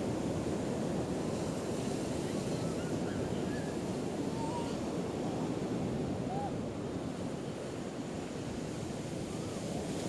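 Ocean surf breaking and washing up the beach in a steady, even rush.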